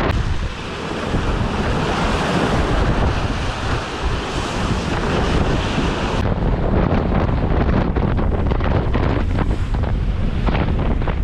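Wind buffeting the microphone over the rush of breaking waves and white water along the hull of a 34-foot sailboat driving through rough seas. The high hiss drops off abruptly about six seconds in.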